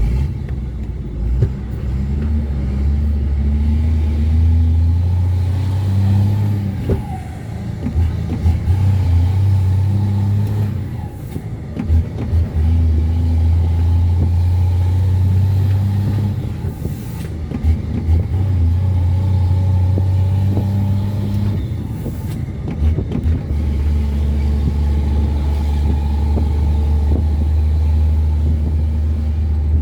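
Ford Cargo 2428 truck's diesel engine pulling under load. It runs in long stretches of a few seconds each, broken by short drops with a few knocks, as at gear changes.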